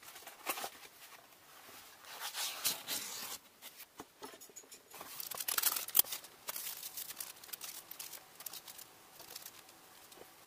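Small plastic bags of kit parts crinkling as they are handled and set down on a table, with scattered clicks and taps. The crinkling is loudest about two to three seconds in and again around six seconds.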